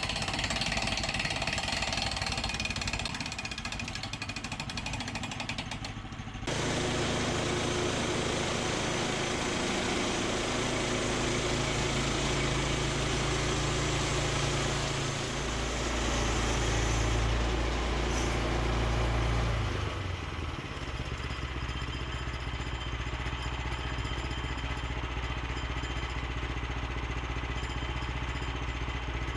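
Small petrol engine running steadily, with an abrupt change about six seconds in and a louder, deeper stretch midway before it settles again.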